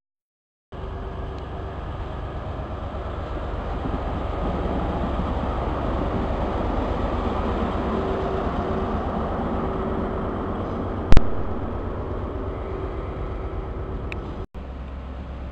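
Grand Central diesel passenger train pulling out of the platform: a steady rumble that builds over the first few seconds, with a steady hum through the middle. A single sharp, loud click about eleven seconds in; the sound cuts out briefly at the start and again near the end.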